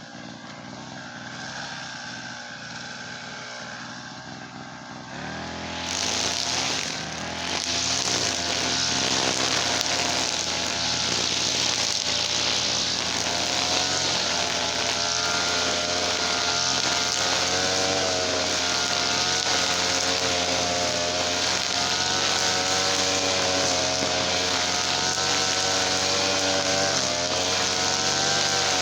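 Small gasoline engine running steadily; about five seconds in it becomes much louder and fuller and then runs on evenly.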